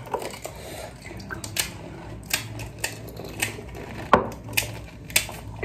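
Crisp golgappa (pani puri) shells cracking and crunching as they are eaten in quick succession: a string of about ten sharp crackles, the loudest about four seconds in.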